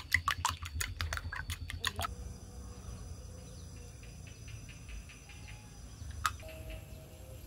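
A metal spoon beating eggs in a glass bowl: a quick run of clinking strokes, about five a second, that stops about two seconds in. After that only faint sounds follow as cooking oil is poured into a clay wok, with one sharp click near the end.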